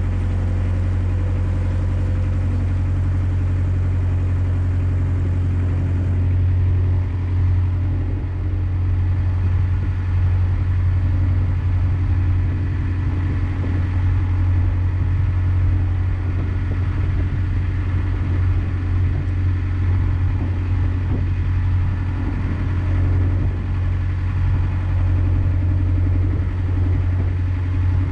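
A narrowboat's engine running steadily while the boat cruises, a constant low hum.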